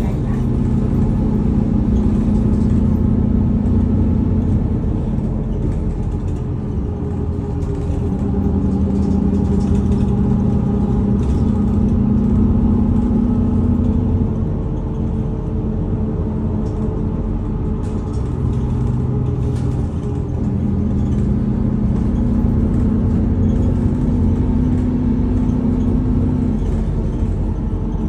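Bus engine and road noise heard from inside the passenger cabin: a steady drone whose pitch steps down and back up a few times as the bus changes speed.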